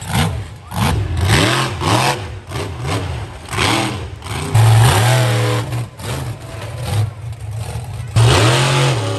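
Monster truck engine revving hard in repeated throttle bursts, rising and falling in pitch, as the truck drives over a row of junk cars.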